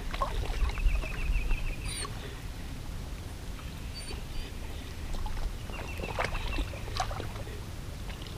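Low, steady wind rumble on the microphone, with a few short bird chirps and two brief runs of rapid high-pitched clicking or trilling, one about a second in and another around six seconds in.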